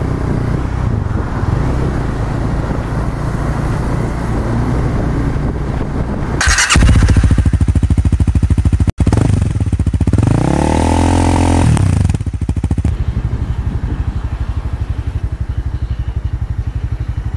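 Honda CB300F single-cylinder motorcycle engine running under way with wind noise. About halfway through, a louder motorcycle engine revs up and back down, and then the bike's engine runs on at low speed with an even pulse.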